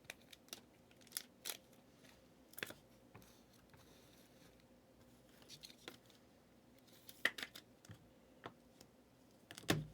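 Trading cards being handled on a desk: scattered light clicks and snaps of card stock and plastic holders, with a heavier thump just before the end.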